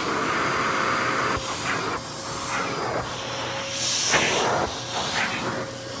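Dyson DC33 upright vacuum cleaner running, a steady motor whine under a rush of sucked air. The suction noise swells and dips every second or so as the nozzle is worked over the stair carpet.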